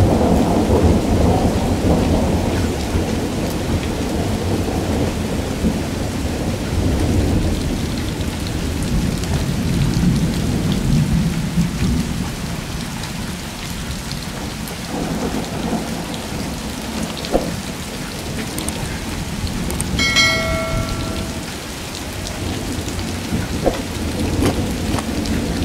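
Heavy rain falling on puddles and muddy runoff water, with thunder rumbling low, heaviest in the first few seconds and again around ten seconds in. About twenty seconds in, a short steady pitched tone sounds briefly.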